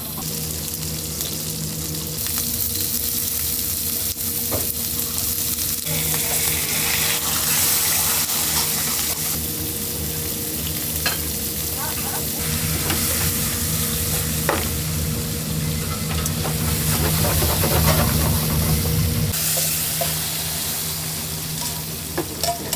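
Pork slices with onion and a pork loin steak sizzling in oil in frying pans over gas burners, stirred with a few clicks of a utensil against a pan. A steady low hum runs underneath.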